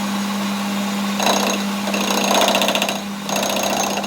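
A workshop machine's motor humming steadily, with two long stretches of loud, rapid rattling from a power tool at work, the first starting about a second in and the second after a brief pause.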